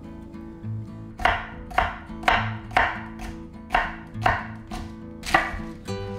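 Chef's knife chopping through jalapeño peppers onto a bamboo cutting board: about nine even, sharp chops, roughly two a second, starting a little over a second in.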